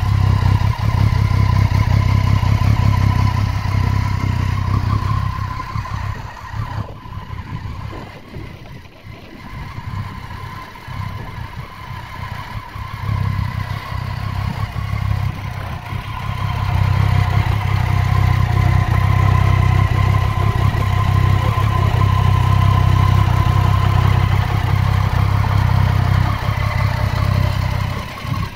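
Triumph Street Triple 675's inline three-cylinder engine running steadily at idle, with no revving. Its level drops for several seconds about a quarter of the way in, then returns.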